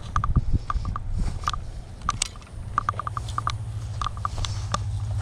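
Fishing reel being cranked, giving quick irregular clicks as the line is wound in. A low steady hum starts about halfway.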